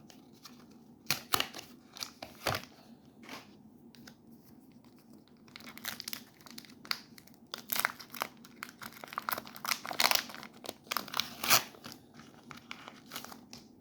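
Foil wrapper of a Pokémon trading card booster pack being torn open and crinkled by hand: irregular sharp crackles, a few about a second in, then a denser run from about halfway through.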